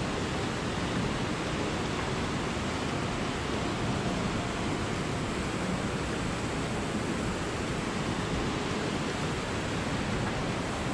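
Steady rushing of a fast glacial river churning through a narrow rock gorge below.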